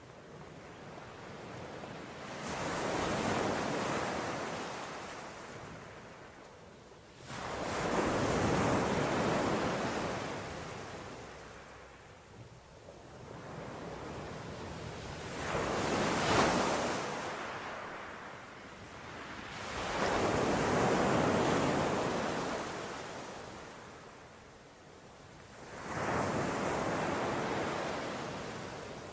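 Surf: waves breaking on a beach, a rushing hiss that swells and ebbs five times, about every five seconds, with some wind on the microphone.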